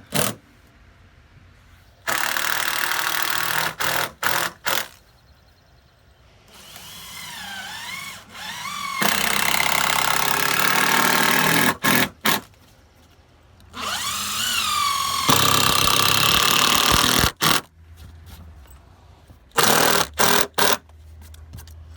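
A power tool running in three loud bursts of a few seconds each, its motor whine rising and wavering as it speeds up, with short sharp clicks in between, during work on composite decking boards.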